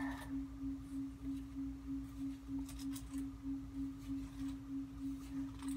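A steady humming tone at a single low pitch, throbbing about four times a second, with a low hum beneath it. A few faint short rustles come about halfway through and again near the end.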